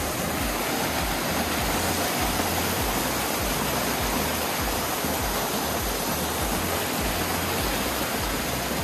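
Water rushing steadily down a rocky, multi-step waterfall cascade.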